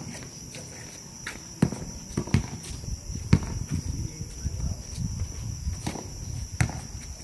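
Crickets calling in a steady high trill, with scattered sharp thuds, the loudest about three seconds in, and a stretch of low scuffing taps from about two to six seconds in.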